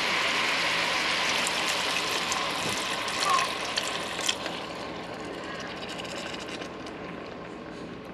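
Water poured from a kettle into a stainless steel pot of frying pork and pork liver, hissing and sizzling as it hits the hot pan. The hiss is loudest for the first four seconds or so, then dies down steadily as the pot starts to simmer.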